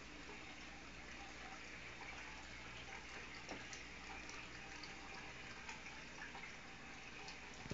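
Faint steady trickle of water from an aquarium filter in a turtle tank, over a constant low hum, with a few light ticks.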